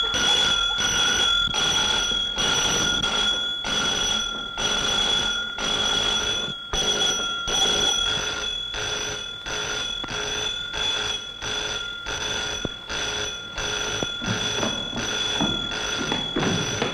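Electric alarm bell ringing without a break, a steady high metallic ring that pulses two or three times a second.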